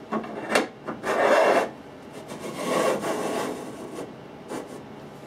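Mounting bar scraping as it is slid down through the slot of a bracket on the back of a flat-screen TV: a few light knocks, then two longer rasping scrapes, and a last knock near the end.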